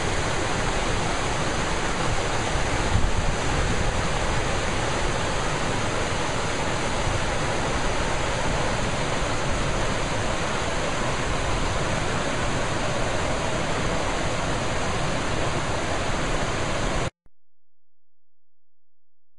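Creek water rushing and splashing down a rocky cascade in a steady hiss. It cuts off suddenly near the end.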